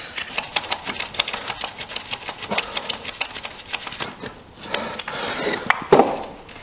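Rapid run of small metallic clicks and rattles from hands and a tool working on a steel drive-shaft coupling and its bolts, then a single louder metal knock about six seconds in.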